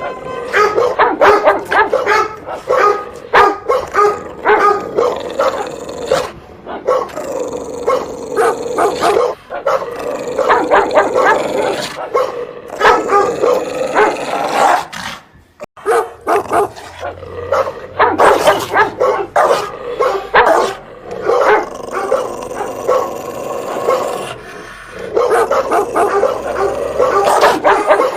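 Dog barking loudly in rapid, continuous volleys, with a brief break about halfway through.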